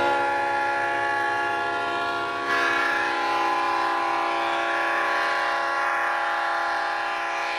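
Katy (Missouri-Kansas-Texas) diesel freight locomotive's air horn held in one long, steady blast, a chord of several tones. It grows louder about two and a half seconds in and eases slightly near the end.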